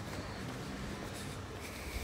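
Steady outdoor town-street background noise with a faint low hum and a few light clicks.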